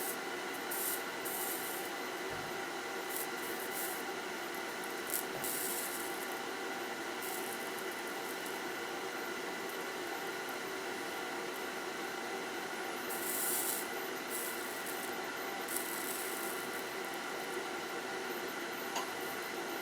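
Steady electrical hum and hiss from workbench equipment, with short, faint scraping and rubbing sounds now and then from hand work on a circuit board.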